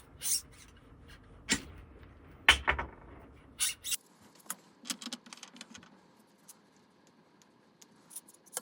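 Irregular sharp clicks and clinks of fuel injectors being worked out of a fuel rail and set down, with a handful of loud ones in the first four seconds and fainter ticks after.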